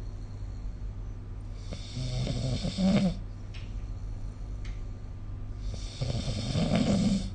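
A person snoring: two long snores about four seconds apart, each lasting over a second, over a steady low hum.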